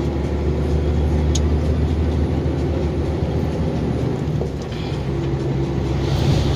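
KAMAZ truck's diesel engine running steadily under load, heard from inside the cab along with road noise. The engine note dips briefly about four and a half seconds in as a gear is changed.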